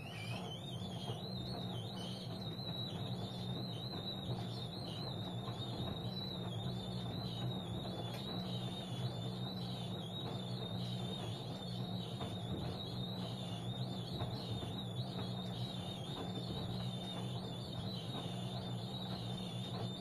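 LG DirectDrive 6 kg front-loading washing machine running its wash, the drum turning the sudsy load: a steady hum with a high, wavering whine on top.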